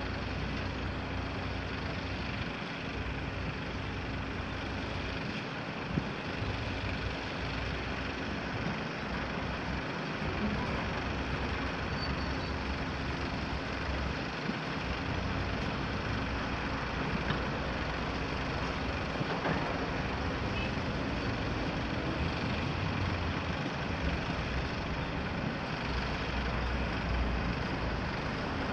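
Volvo EC 300 excavator's diesel engine running steadily as it works, with a sharp knock about six seconds in.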